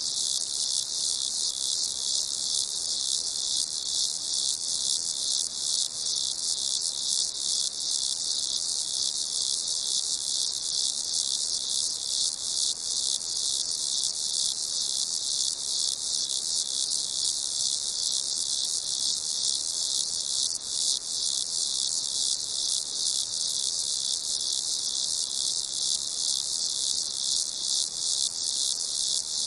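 Crickets chirping in a dense, continuous chorus, high-pitched with a rapid pulsing that never pauses.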